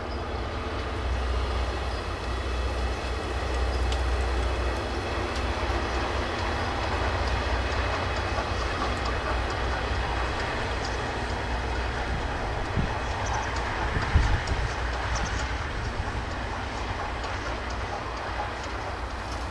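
Steam-hauled train behind the 8620-class locomotive 58654 running along the track: a steady rumble with wheels clattering on the rails, and a few sharp knocks about two-thirds of the way through.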